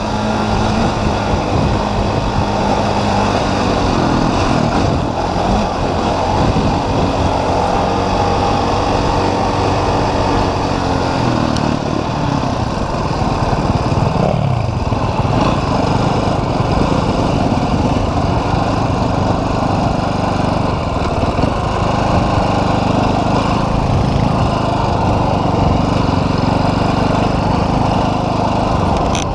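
Dirt bike engine running under way over rough ground, heard from on the bike, its pitch dipping and climbing again about halfway through as the throttle is eased and opened.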